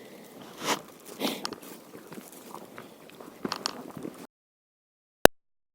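A few crunching scrapes and sharp clicks close to the microphone. About four seconds in, the sound cuts out to dead silence, broken once by a single sharp click.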